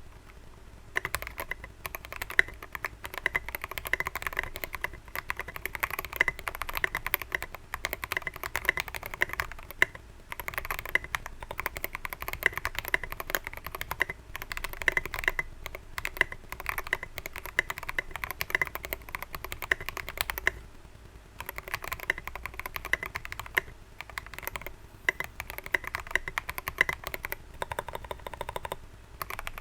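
Typing on an Akko Mod001 mechanical keyboard with Dareu Sky Blue V2 switches, and Dareu Violet Gold switches on the space bar and right shift. A fast, steady stream of key clacks starts about a second in, with a brief pause about two-thirds of the way through.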